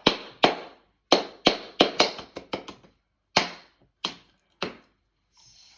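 About a dozen sharp knocks in quick, irregular succession, with a short pause about three seconds in.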